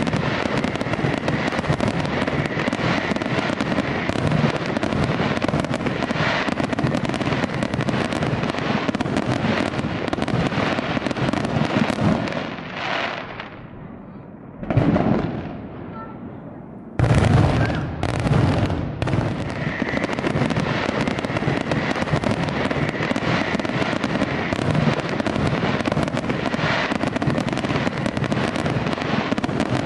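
Aerial fireworks display: a dense barrage of bangs and crackling from many shells bursting at once. It eases off for a few seconds about halfway through, with one burst in the lull, then starts again with a loud bang.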